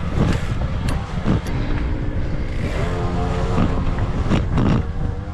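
Mountain bike rattling and clattering over a rough trail, with heavy wind rumble on the microphone; a short steady tone sounds about three seconds in.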